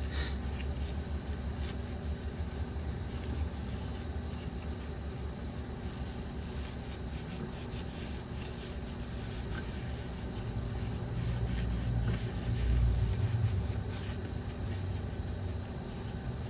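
Faint irregular scratching of an abrasive pad scrubbing the camshaft seal bore clean, over a steady low rumble.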